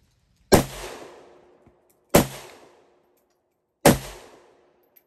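Three rifle shots from a 1963 Chinese Type 56 SKS firing 7.62×39 rounds, evenly spaced about a second and a half apart, each trailing off in a short echo.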